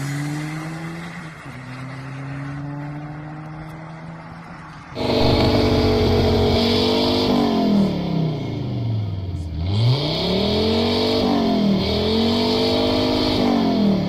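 Volvo 850's tuned 2.5 TDI five-cylinder diesel engine. First it accelerates away through the gears, its note climbing in steps and fading. About five seconds in, it is revved hard while standing, held high, then falls and climbs again twice in long sweeps.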